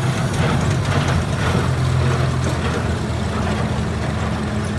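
John Deere 4020 tractor engine running steadily under PTO load, driving a New Holland hay baler, with the baler's mechanical clatter over the engine note.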